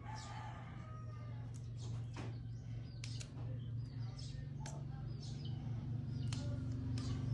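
Light clicks of small plastic LEGO bricks being handled and pressed together, with faint chirping of small birds and a low steady hum in the background.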